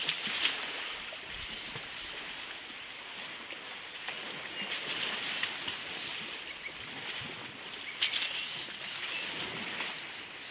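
African elephants splashing and wallowing in a muddy waterhole, with a few louder splashes near the start, around five seconds in and about eight seconds in, over a steady outdoor hiss.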